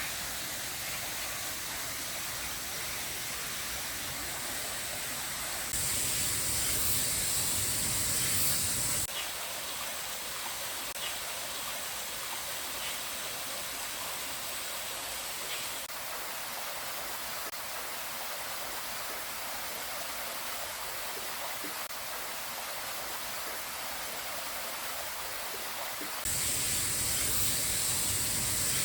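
Stream water rushing steadily in a continuous hiss, with no words. It jumps abruptly louder and brighter twice, about six seconds in for some three seconds and again near the end.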